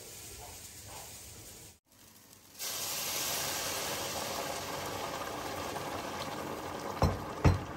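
A glass electric kettle boiling, then, after a cut, hot water poured from the kettle into a hot pan of toasted grain, hissing and sizzling steadily. Two sharp knocks come near the end.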